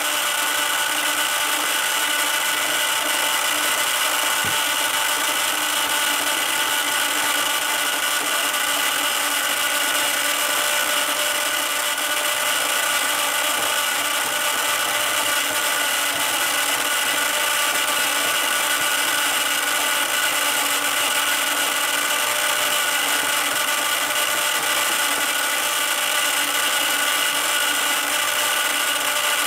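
Small electric motor of a toy spin-art painting machine running steadily, spinning the paint card under its plastic dome with an even whirring hum.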